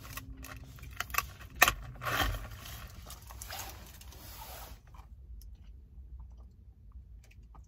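Handling noise as a plastic fast-food drink cup is picked up. A couple of sharp clicks come about one and one and a half seconds in, then rustling that stops about five seconds in, leaving only faint small sounds.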